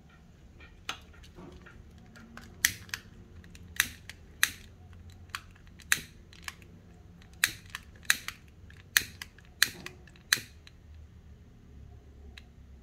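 Long-nosed butane utility lighter's piezo igniter clicking over and over, about fifteen sharp clicks at irregular spacing, some in quick pairs, stopping near the end.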